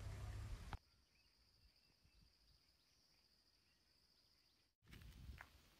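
Faint, steady high-pitched chirring of insects over near silence. A low rumble stops abruptly within the first second, and near the end a few light clicks come in with low noise.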